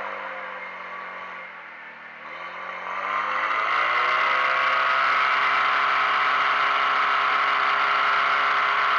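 Portable fire pump's engine easing off in revs for about two seconds, then revving back up and running steadily at high revs while it pumps water through the hose line.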